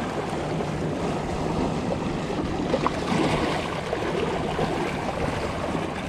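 Small waves washing and splashing against shoreline rocks, a steady rush of water with wind buffeting the microphone.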